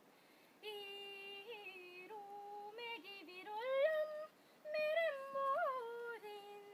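A high voice singing a wordless, yodel-like melody: long held notes joined by slides up and down, in phrases that start about half a second in and break off briefly near the middle.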